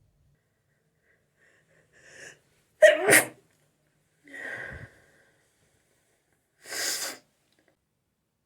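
A person's sneeze in a sneezing fit. A faint sharp intake of breath comes about two seconds in, then one loud sneeze about three seconds in. A short vocal sound falling in pitch follows, and near seven seconds a brief hissing burst of breath.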